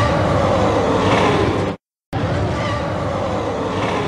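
Gorgonopsid creature sound effect: two growls, each a couple of seconds long with a slowly falling pitch, parted by a moment of dead silence just before the middle.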